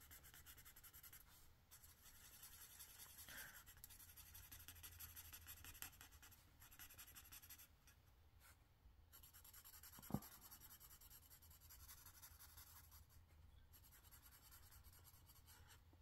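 Faint scratching of a marker's fine tip stroking back and forth on paper, coloring small areas, with one soft knock about ten seconds in.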